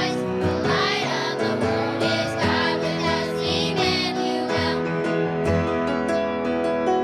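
Children's choir singing a Christmas song over instrumental accompaniment; the voices stop about two-thirds of the way through, leaving the instrumental music with plucked string notes.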